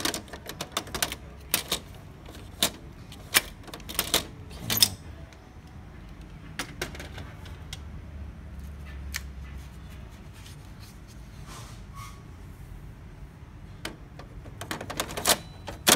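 Sharp plastic clicks and knocks of a laser printer's drum cartridge being handled in its bay, a quick run of them in the first five seconds and another cluster near the end.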